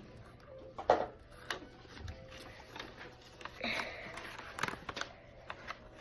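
Scattered small clicks, taps and rustles of craft materials being handled, with a sharp click about a second in and a short rustle nearer the end.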